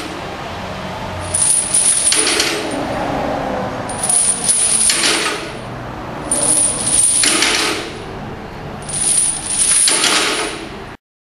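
Heavy steel chains hung from a bench-press barbell rattling and jingling as they lift off and pile back onto the floor with each rep. There are four rattles, about every two and a half seconds, and the sound cuts off abruptly near the end.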